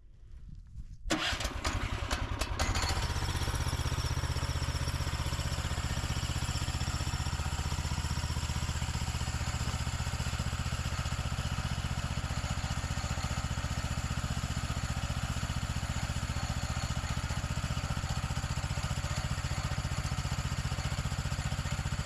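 Hud-Son Oscar 428 sawmill's gasoline engine started cold on choke: it catches about a second in, stumbles briefly, then settles into steady running.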